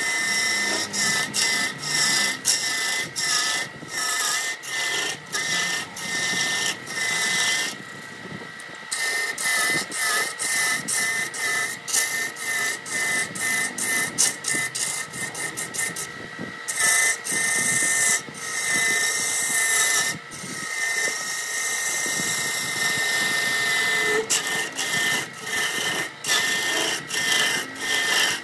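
Wood lathe turning a large wooden blank while a hand-held gouge cuts into it, throwing off shavings. The cut sounds as quick rasping strokes, two to three a second, over a steady high whine. The cutting pauses briefly about a third of the way in and again just past halfway.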